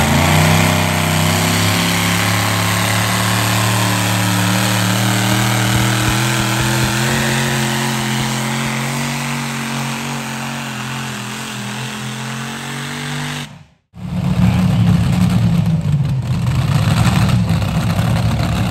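Modified V8 pulling-tractor engine running hard under load while dragging the weight sled, a steady note that slowly fades as it pulls away. About 14 seconds in it cuts off abruptly and a louder, rougher engine takes over.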